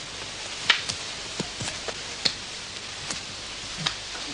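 Eskrima fighting sticks of fire-hardened wood clacking in close-range sparring: five or six sharp, irregular knocks, the loudest about a second in, over a steady hiss.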